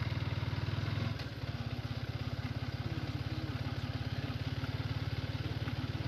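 Motorcycle engine running at low road speed, a steady low throb that eases slightly about a second in.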